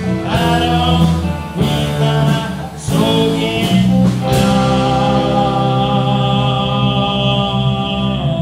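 Live rock band with two electric guitars, bass guitar and drums playing the closing bars of a blues-rock song: a few heavy drum-and-chord hits, then a long held note that cuts off near the end.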